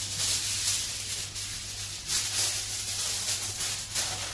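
Aluminium foil crinkling and rustling as hands fold and crumple it around food packets, with many small crackles.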